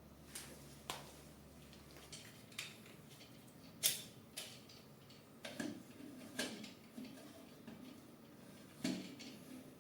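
Irregular light clicks and knocks of hard parts being handled and set down during assembly of a Bambu Lab A1 3D printer, with a sharper knock about four seconds in.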